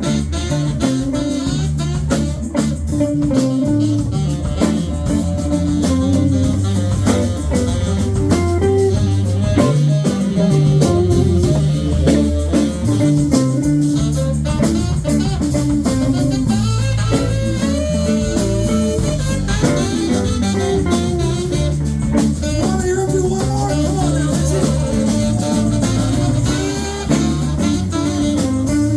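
A live rock band playing an instrumental passage: guitar over bass and a drum kit.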